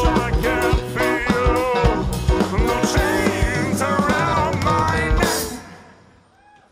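A live band playing, with a drum kit and a singing voice, ending on a final crash about five seconds in, after which the sound dies away.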